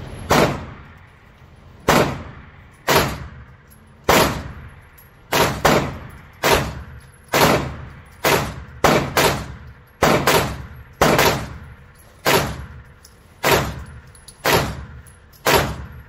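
Smith & Wesson pistol fired shot after shot, about sixteen rounds at roughly one a second, a few coming in quicker pairs, each sharp crack trailing off in a short echo.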